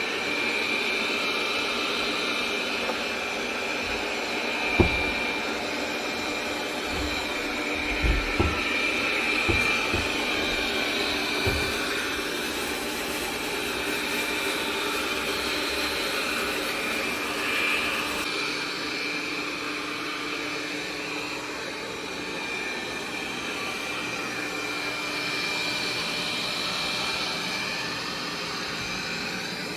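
iNIC i9 robot vacuum running, a steady motor and suction noise with a high whine. A few dull knocks come around five seconds in and again between eight and twelve seconds.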